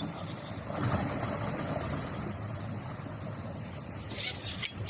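A steady low rumble, then several short splashing, rustling noises about four seconds in, as a small crucian carp is brought in on a pole rig.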